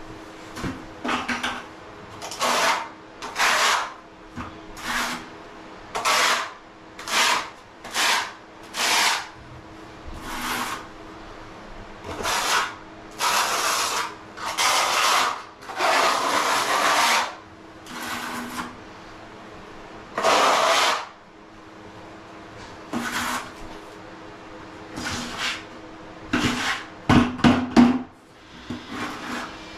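A notched trowel scraping tile mortar across a floor in a long series of separate strokes, each under a second. The strokes come quicker and sharper near the end.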